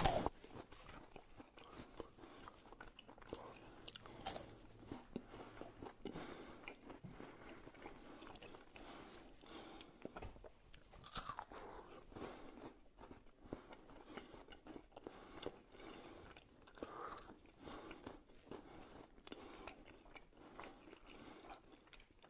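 A person chewing a KitKat wafer chocolate bar: quiet, irregular crunches of the wafer.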